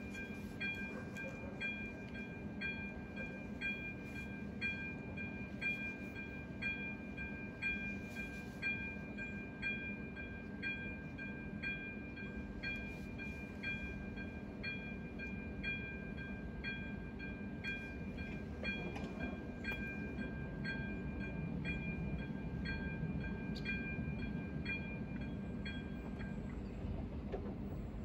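Railway level-crossing warning bell striking about once a second while the barriers lower. The ringing stops near the end, with the barriers down.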